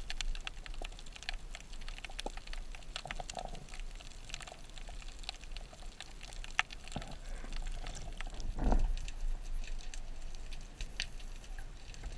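Underwater ambience: sparse, irregular clicks and crackles, with one brief louder swish of water about two-thirds of the way through.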